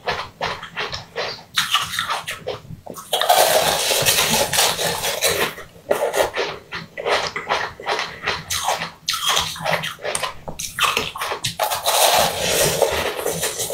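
Mouth biting and crunching a block of coloured ice: runs of sharp, separate crunches alternating with two longer stretches of continuous wet chewing and sucking at the ice.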